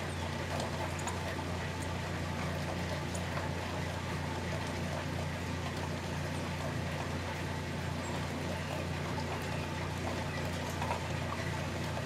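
Steady rain falling in woodland, with scattered faint raindrop ticks over a constant low hum.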